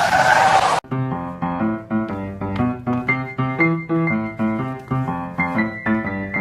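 A loud rushing noise cuts off abruptly under a second in. A brisk piano tune follows, played in quick separate notes.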